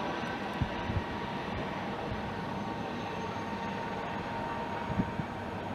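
Steady hum of city traffic crossing a nearby bridge, with a few soft low thumps about half a second in, around one second and about five seconds in.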